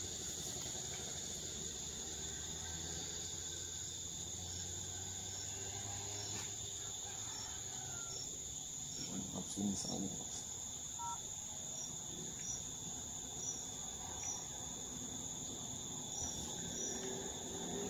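Insects droning steadily, a high continuous buzz with a short chirp repeated in runs about every two-thirds of a second. A soft knock sounds a little past the middle.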